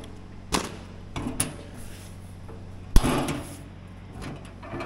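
Hands working at the Wheel Horse garden tractor's hood: a few light knocks, then one sharp metallic clank about three seconds in followed by a brief rattle, and fainter clicks near the end.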